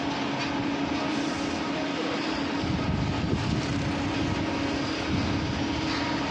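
Construction-site machinery running steadily: an engine drone with a constant hum under a broad noisy wash, the low rumble a little heavier around the middle.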